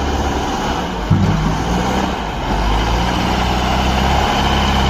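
Steady idling truck-engine sound, a continuous low rumble that grows slightly fuller about a second in.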